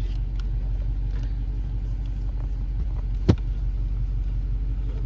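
Steady low rumble of a car engine idling, with a single sharp click about three seconds in.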